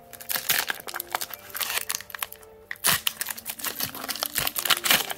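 Crinkling and tearing of a Pokémon booster pack's foil wrapper as it is ripped open and handled, an irregular crackle with a louder rip about three seconds in.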